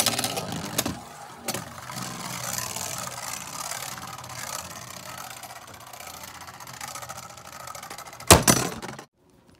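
A Beyblade spinning top whirring and scraping as it spins across the floor of a plastic Beystadium, with a few clicks in the first second and a half and one loud clack near the end.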